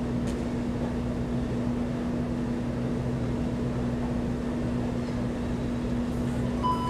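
Steady low hum of room noise with a constant buzzing pitch, and a short high beep near the end.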